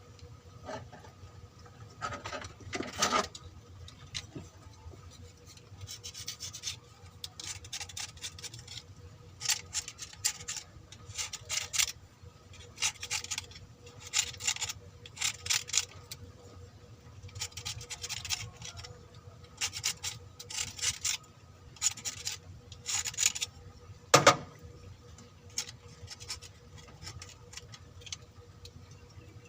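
Repeated hand scraping and rubbing strokes on an engine part, coming in irregular runs, with one sharp knock about three-quarters of the way through.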